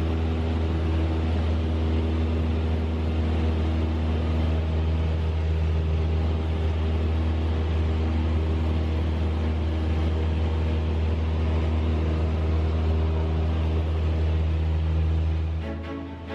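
Steady drone of a light single-engine airplane's piston engine and propeller, even and unchanging, dropping away at the very end.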